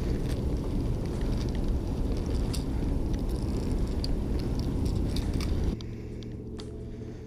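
Wind buffeting the microphone as a low rumble, with small clicks and rattles as the bass is handled and the jerkbait's hooks are worked free. About six seconds in the rumble drops suddenly, leaving a steady low hum.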